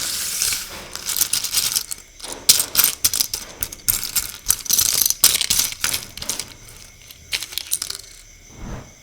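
Plastic LEGO bricks clattering together, a dense run of small hard clicks and rattles that thins out in the last few seconds, with a low thump near the end.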